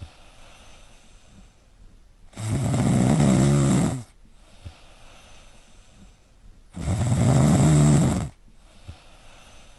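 A dog snoring: two long, loud snores about four and a half seconds apart, one starting a couple of seconds in and the next about seven seconds in, each lasting about a second and a half, with quiet breathing between.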